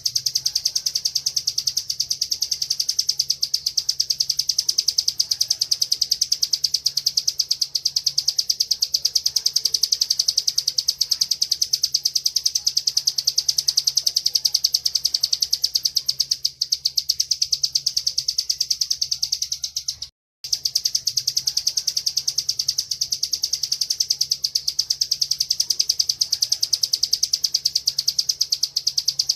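Bar-winged prinia (ciblek) singing its continuous 'ngebren' song: a very fast, even, high-pitched trill that runs on without a pause. It cuts out briefly about twenty seconds in.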